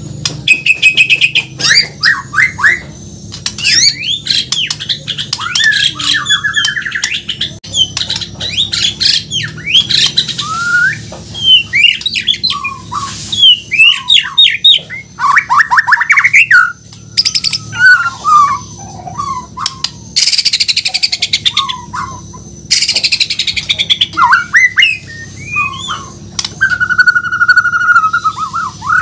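White-rumped shama (murai batu, Bornean form) singing a long, varied song of fast whistled phrases and trills mixed with harsh buzzy notes, with a held, steady whistle near the end.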